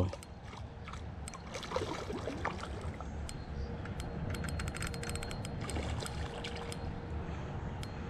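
Outdoor river ambience: a low rumble with faint trickling water and scattered small clicks and rustles. A faint steady hum comes in about halfway through.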